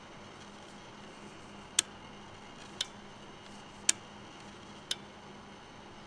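Four sharp ticks about a second apart over a steady low hiss.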